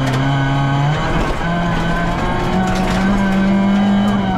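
VW Polo rally car's engine heard from inside the stripped cabin at speed on a gravel stage, its note dropping about a second in, then climbing and holding high, over road and tyre noise with a few sharp ticks.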